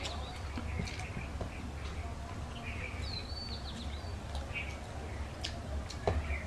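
Birds chirping, with short whistled calls at the start and again about three seconds in, over a steady low hum. Underneath are light clicks and scrapes of fingers mixing rice on steel plates, and chewing.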